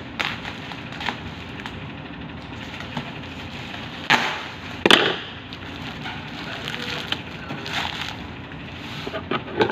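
Packaging being handled and opened, with scattered sharp crackles and clicks; the two loudest come about four and five seconds in.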